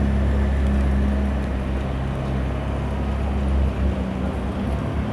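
McLaren 600LT's twin-turbo V8 idling steadily, a low, even note with no revving.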